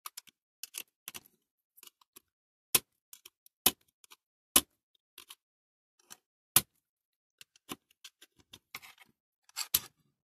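Scattered sharp clicks and light taps of small metal parts and hand tools being handled and set down, with a few louder single clicks.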